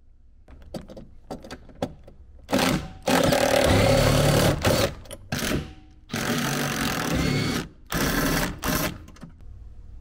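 Handheld power tool run in several short bursts, the longest about a second and a half, after a few light clicks.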